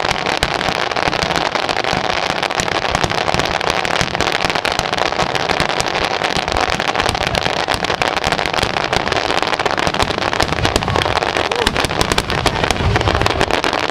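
Many aerial firework shells bursting in quick succession: a dense, continuous crackle of bangs.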